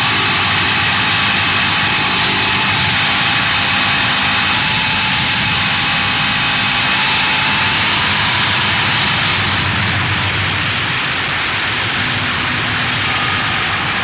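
Harsh noise music: a loud, steady wall of dense hiss and rumble with faint held tones running through it. A bright high layer drops out about ten seconds in.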